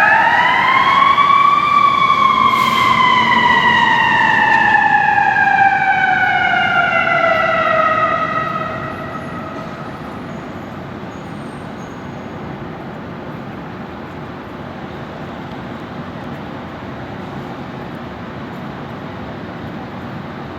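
Fire engine siren rising once, then winding down in a long slow fall and fading out about nine seconds in as the engine arrives on scene. After that a steady murmur of vehicle and street noise remains.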